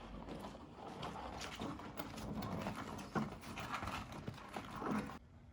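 Scattered light knocks and clatter of handling noise, irregular and without a steady rhythm.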